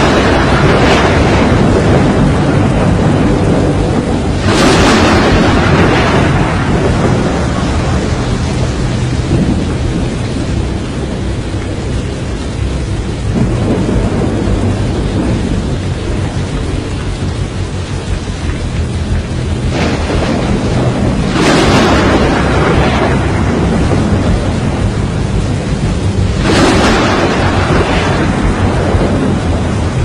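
Thunderstorm: a constant rush of heavy rain and wind, with several loud rolls of thunder swelling up and fading, the first about four seconds in and more in the second half.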